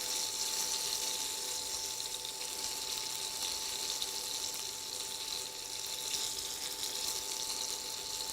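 Chicken breast pieces frying in oil in a pan, a steady sizzle.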